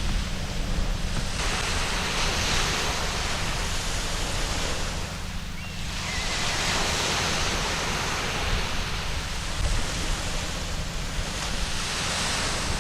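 Sea waves breaking and washing up a sandy beach: a continuous rush of surf that swells and eases, dipping briefly about halfway through before the next wave comes in.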